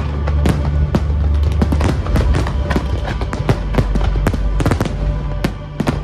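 Fireworks going off in quick succession, a dense run of sharp bangs and crackles, over music with a heavy steady bass.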